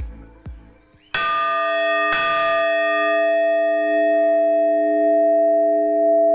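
Freshly cast metal bell struck twice, about a second apart, then ringing on with several steady, lasting tones.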